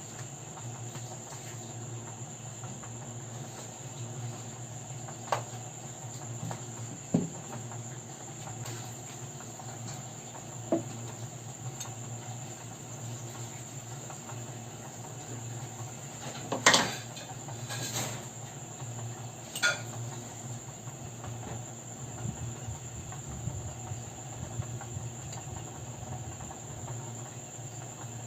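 Crickets chirring steadily in a high, continuous band, over a low steady hum. A few sharp knocks and clinks cut in now and then, the loudest just past halfway.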